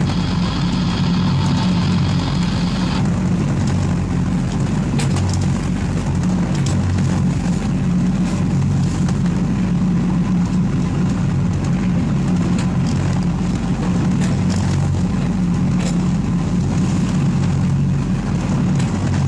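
A sailboat's inboard engine running steadily at constant speed, with a rush of wind and water over the hull.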